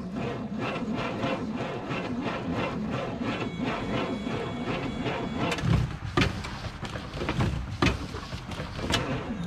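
Chevy truck engine cranking over slowly on its starter in a steady rhythm without catching, with a few sharper knocks in the second half. It turns over too slowly because the alternator and AC compressor pulleys are seized.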